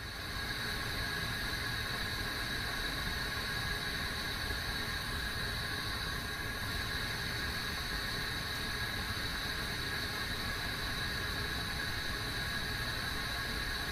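Kettle heating water: a steady hiss and rumble, with faint steady high tones over it.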